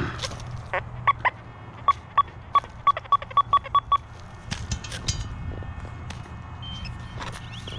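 Metal detector beeping on a target: about a dozen short beeps at a steady, fairly high pitch, coming faster toward the end. A few soft knocks of digging follow.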